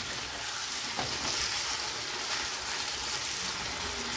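Chicken pieces with capsicum sizzling steadily as they are stir-fried on high flame in a nonstick kadai, a spatula turning them, with a light knock about a second in. The cooking liquid has dried off, so the chicken is frying in its own fat (the bhuna stage).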